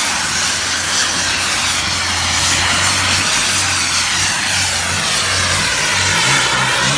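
A radio-controlled model jet's engine whining loudly and steadily while the model hovers nose-up, the sound shifting in a slow swoosh as it moves.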